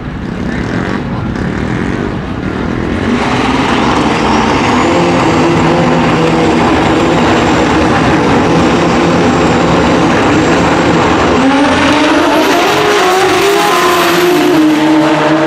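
Two Pro Xtreme drag bike engines running at the starting line, then launching about eleven seconds in and accelerating hard down the strip, their pitch climbing and stepping.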